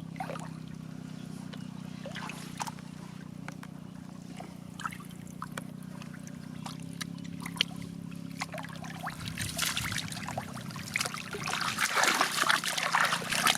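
Water trickling and dripping with scattered small splashes, building about two-thirds of the way in into steady, heavier splashing and sloshing, over a steady low hum.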